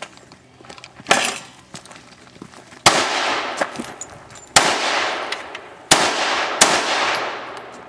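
Five handgun shots fired one at a time, each followed by a short echo. The first comes about a second in, then one near three seconds, one near four and a half, and the last two close together near six seconds.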